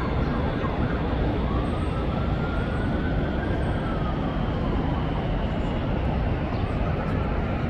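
Steady vehicle running noise, with a faint whine that slowly rises in pitch and then falls.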